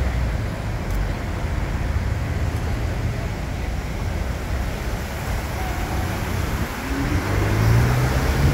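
Road traffic running steadily, a low rumble of vehicle engines, with one engine note rising and growing louder near the end.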